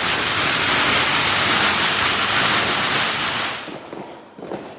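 A firework fountain spraying sparks with a loud, steady hiss that dies away about three and a half seconds in, followed by a couple of faint pops.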